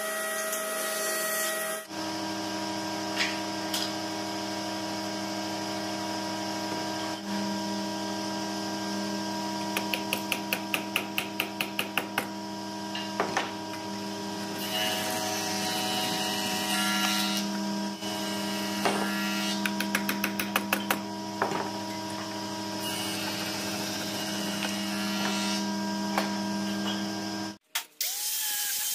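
A cordless drill runs for about two seconds, then a steady hum continues under bursts of quick handsaw strokes trimming wooden dowel pegs flush with a pine board. Near the end an angle grinder with a sanding pad starts up and runs.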